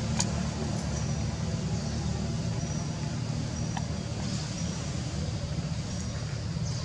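Steady low rumble of a running motor vehicle or engine. Faint short high chirps recur every second or so, with an occasional click.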